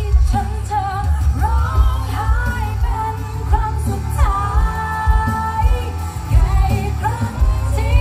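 A woman singing a pop song live into a microphone over a band, with heavy bass and drums. About halfway through she holds one long note.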